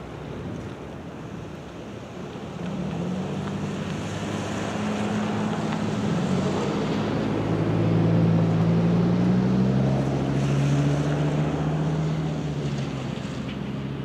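Wind buffeting the microphone, joined about three seconds in by a low steady drone that swells and grows louder.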